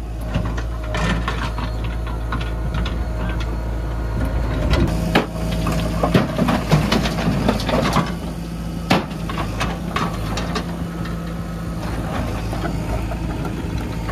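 Diesel engine of a JCB backhoe loader running steadily while large stones tip from its bucket and clatter and thud into a tractor trolley. The knocks cluster from about five to eleven seconds in.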